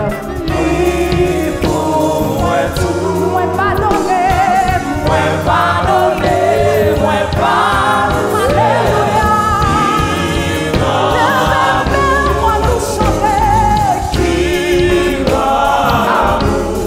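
A woman lead singer and a praise-team choir sing a Haitian Creole gospel worship song, accompanied by keyboard.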